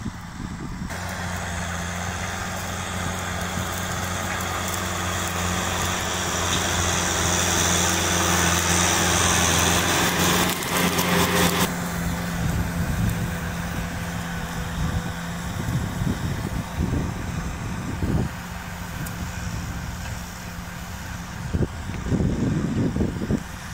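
Kubota tractor's diesel engine running steadily under load while its rear rotary tiller churns dry soil. It is loud with a broad rush of tiller noise for the first half, which stops abruptly about halfway through, after which the engine drones on. A few low rumbling bursts come near the end.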